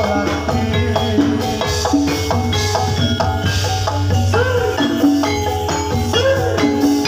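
Live Javanese gamelan playing for a jathilan horse dance: bronze metallophones ring out a steady run of notes over drum strokes and a low drone.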